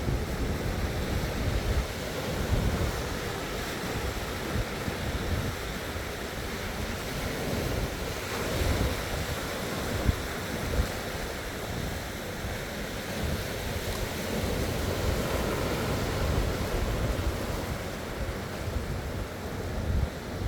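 Sea waves washing and breaking on the shore, swelling and easing. Wind buffets the microphone with a low, uneven rumble.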